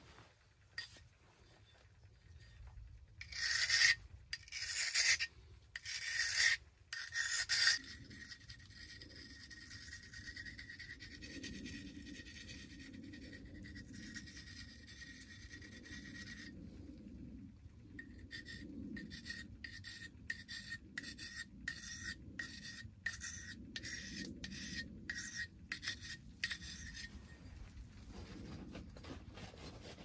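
Knife blade being sharpened on a handheld flat sharpening stone. There are four long, loud scraping strokes a few seconds in, then a quieter steadier scrape, then a run of about twenty quick short strokes, roughly two a second.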